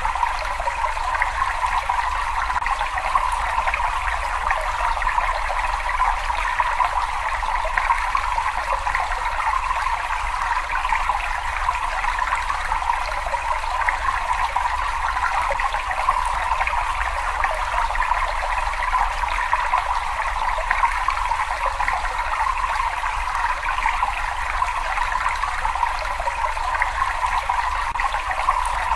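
Running water flowing steadily, an even splashing hiss with a low rumble beneath it and no change in level.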